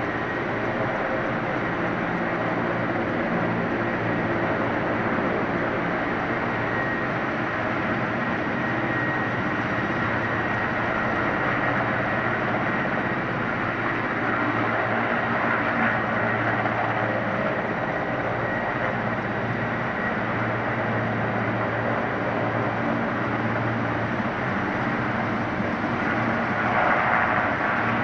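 Mi-8 helicopter's twin turboshaft engines and rotor running steadily as it hovers low over the airfield, a continuous turbine drone that grows a little louder and brighter near the end.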